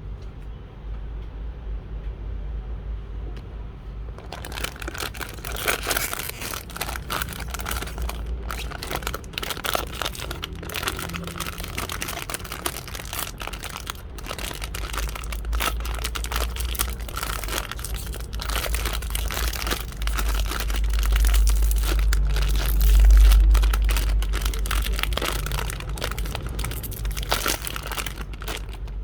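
Plastic blind-box packaging being crinkled and torn open by hand. It is a continuous crackling rustle that starts about four seconds in, with a low rumble of handling underneath, and grows louder about three quarters of the way through.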